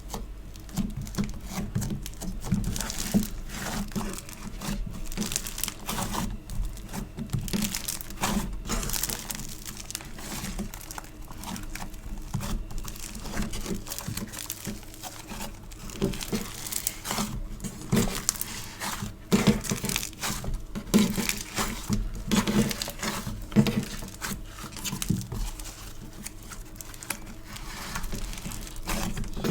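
Hands squishing, stretching and pulling apart sticky store-bought foam clay and slime: a dense, irregular run of crackling, popping and tearing sounds.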